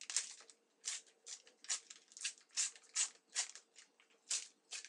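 A collectible sticker/card packet wrapper being torn open and worked by hand, a series of short, sharp crackles about two a second.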